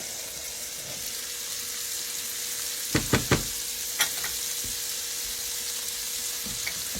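Sliced fresh and sun-dried tomatoes sizzling steadily as they sauté in butter in a hot pan. A quick run of three sharp knocks comes about three seconds in, and a single knock about a second later.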